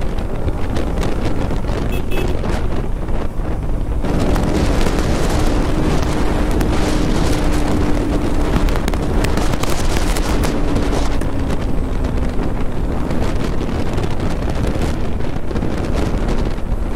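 Wind buffeting the microphone of a moving motorcycle, with the Pulsar NS200's single-cylinder engine running underneath. The rush gets louder about four seconds in, and a faint engine note sags slowly in pitch through the middle.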